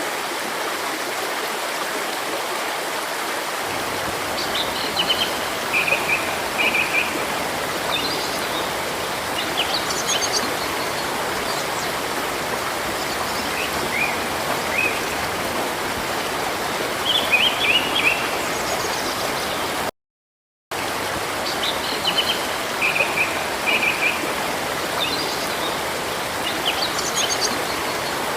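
Steady rushing of a stream, with small birds chirping and twittering in short, high phrases over it. About two-thirds of the way through, the sound cuts out completely for under a second, and the same run of chirps then repeats.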